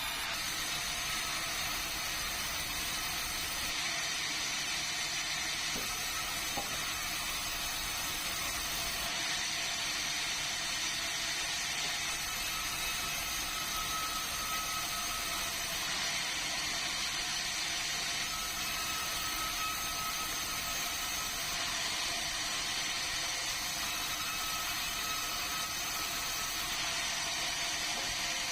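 Sawmill band saw cutting meranti timber: a steady, unbroken mechanical noise with a faint whine that comes and goes.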